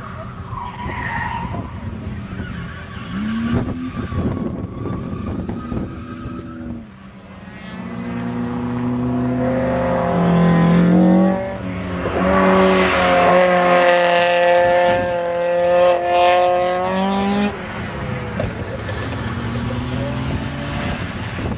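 Drift cars sliding on a track: engines held at high revs with tyre squeal, the engine note climbing and holding loudest through the middle of the stretch as a car passes close.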